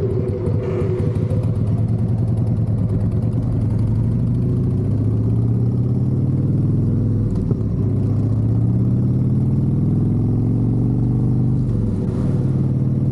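Harley-Davidson V-twin motorcycle engine running while riding. Its pitch rises as it accelerates and drops back at two gear changes, partway through and near the end.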